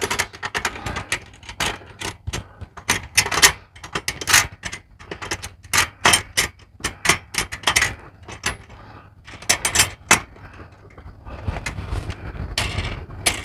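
Irregular metallic clicks and clinks from an antenna and its metal mounting hardware being handled and fitted together by hand, over a low wind rumble on the microphone.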